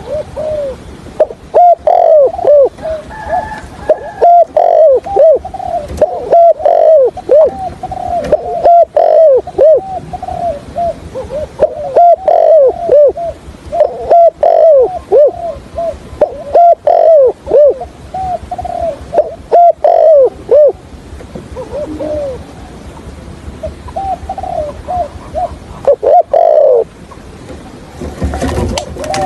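Spotted dove cooing over and over in dense runs of short, arching coos with brief gaps: the stuttering 'cà lăm' coo used as a decoy call to draw wild doves to a trap. A short rustling noise comes near the end.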